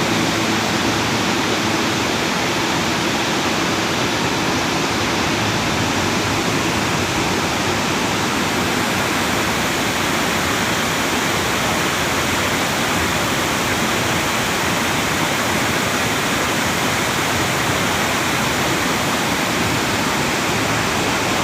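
A steady, unchanging rushing noise, even across low and high pitches, with no distinct events.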